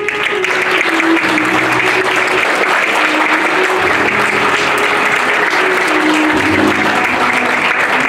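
Theatre audience applauding at the end of the act, with music playing underneath in steady held notes.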